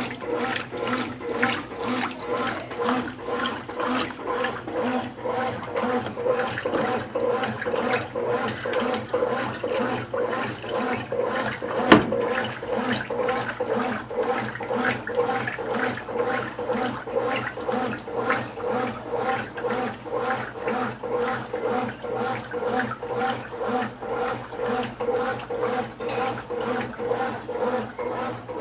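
Consul Cargo 8 kg top-loading washing machine in turbo agitation at high water level: water churning in rhythmic surges about twice a second over a steady motor hum, with one sharp click about twelve seconds in.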